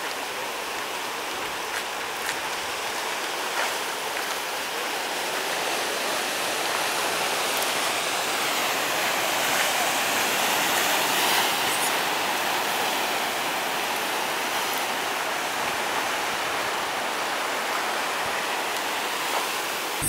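Atlantic surf washing in and breaking over rocks, a steady rushing that swells slightly about halfway through.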